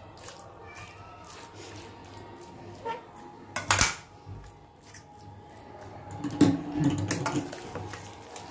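A metal spoon scraping and clinking against a stainless steel kadai while stirring potato fry. There is one sharp clink about three and a half seconds in, and a run of knocks near the end.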